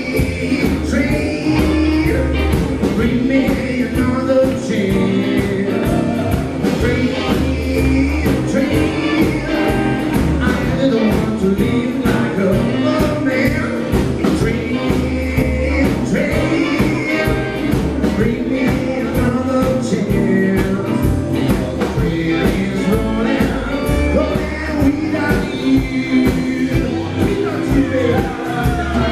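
Live rock and roll band playing with a steady drum beat: a man singing lead over electric and acoustic guitars and an upright bass.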